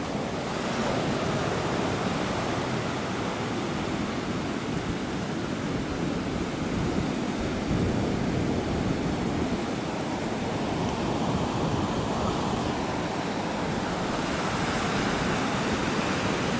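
Pacific Ocean surf breaking on a sandy beach: a steady rush of waves.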